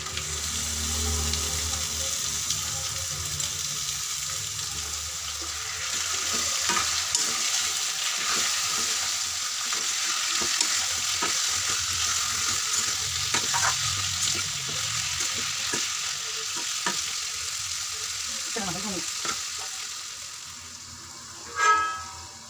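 Masala-coated chicken pieces sizzling in hot oil in a nonstick kadai, stirred with a spatula that scrapes and clicks against the pan. The sizzle eases near the end, then a steel lid is set on the pan with one loud ringing clank.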